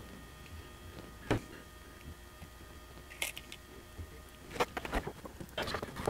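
Handling of small parts on a workbench: a sharp tap about a second in, a brief rustle around three seconds, and a run of light clicks and taps near the end as a small circuit board and a plastic PowerPole connector are moved and set down.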